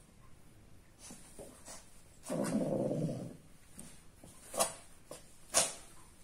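A cat gives one low, drawn-out yowl, the mating call of a cat in heat. Later come two sharp clicks about a second apart.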